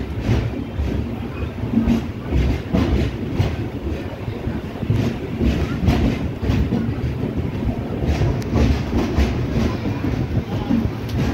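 Cholan Express passenger train running, heard from aboard a coach as it pulls out of the station: a steady low rumble with the wheels clattering irregularly over the rail joints.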